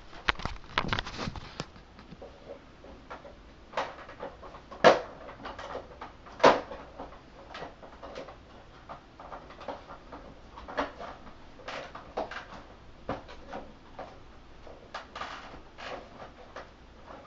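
Irregular clicks, taps and knocks of hard plastic being handled and pried at on a Westinghouse Unplugged cordless vacuum's base housing, with two sharper knocks about five and six and a half seconds in.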